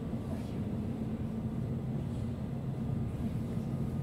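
Inside a Berlin S-Bahn class 483 electric multiple unit: a steady low rumble of the train's running gear and traction equipment.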